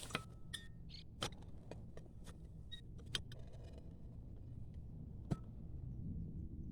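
Irregular sharp clicks and knocks of a shovel digging into soil, about eight over a few seconds, over a steady low rumble.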